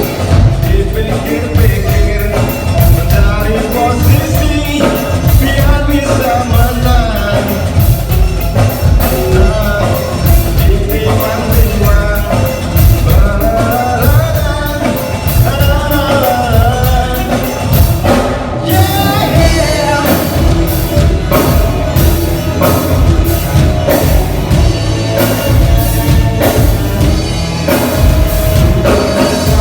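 Band playing an upbeat rock song with a lead singer over a drum kit, a sound-check run-through. The music breaks off for a moment about two-thirds of the way through.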